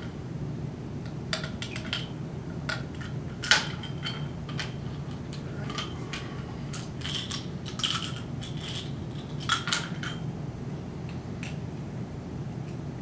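Pieces of a dense unknown solid clinking and tapping against a glass graduated cylinder as they are eased one by one into its water. The clicks come at irregular intervals, with a sharper one a few seconds in and two in quick succession later on, over a steady low room hum.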